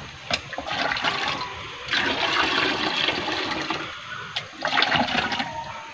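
Water scooped from a bucket with a plastic mug and poured into a plastic watering can, in several splashing pours with the odd knock of the mug, diluting a fermented organic fertiliser slurry.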